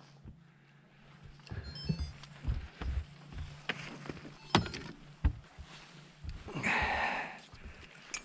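Knocks and thumps of a landing net and gear against a fishing boat's hull and deck, then a short splash in the water about six and a half seconds in, over a low steady hum.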